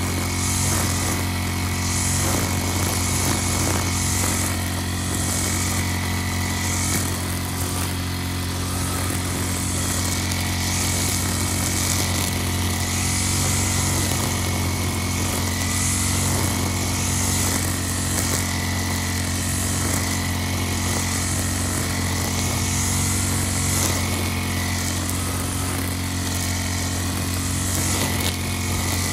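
Backpack brush cutter engine running steadily at cutting speed while its cutting head swings through tall grass. Over the engine's even drone, a high hiss swells and fades about once a second with each sweep of the head.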